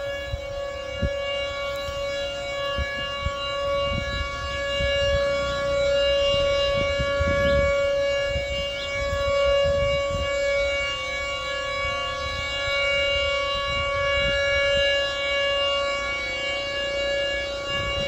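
Outdoor tornado warning siren, a Hor siro-drone, sounding a steady tone at one pitch, its loudness swelling and easing every few seconds.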